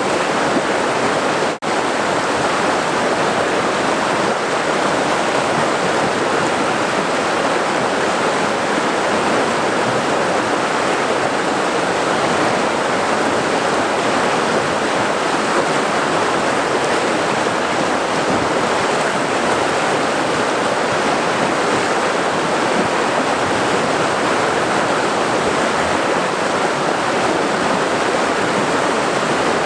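Steady rushing water of a river, given as a boiling river, with a momentary gap in the sound about a second and a half in.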